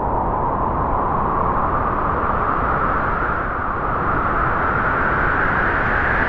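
Wind blowing in a steady gust, its whooshing tone rising slowly in pitch.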